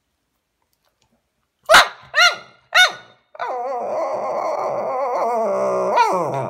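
Shih Tzu barking: one sharp bark about two seconds in, the loudest sound, then two shorter yips. These run straight into a drawn-out vocal grumble of about three seconds whose pitch wavers up and down.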